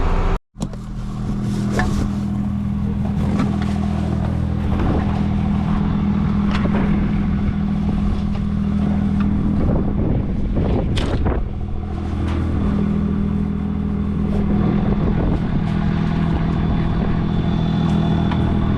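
Farm tractor's diesel engine running steadily while travelling on the road, with rattling and clatter over the engine drone.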